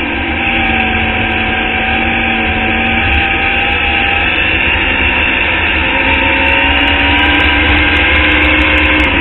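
Formula Indy open-wheel race car's engine running hard at speed, heard on board. Its pitch holds and sags slightly for the first few seconds, then climbs steadily through the second half as the car accelerates.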